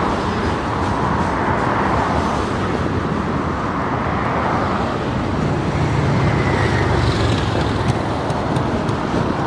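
Freight ballast train rolling past: a steady rumble of loaded hopper cars on the rails, with a deeper low rumble swelling in the middle.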